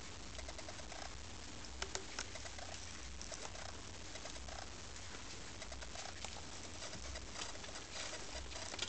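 A British shorthair cat purring in a steady rhythm of breaths, with a few light taps and scratches from playing kittens, the sharpest clicks about two seconds in and near the end.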